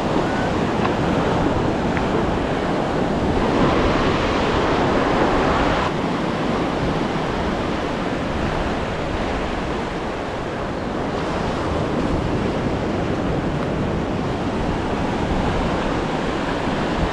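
Ocean surf breaking and washing up a sandy beach, a continuous rushing that swells louder for a couple of seconds a few seconds in, with wind buffeting the microphone.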